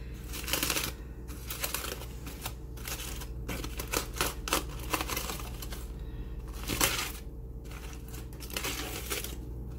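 Aluminium foil crinkling and crackling in irregular bursts as it is peeled open by hand.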